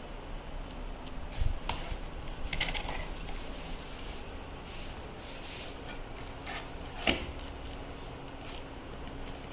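Cardboard box being cut open with a knife and handled: scattered scrapes, rustles and knocks, the sharpest knocks about a second and a half in and about seven seconds in.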